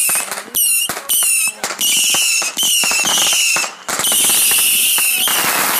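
Consumer fireworks firing in quick succession: a string of about eight shrill, wavering whistling shots about half a second apart, with a longer one about four seconds in.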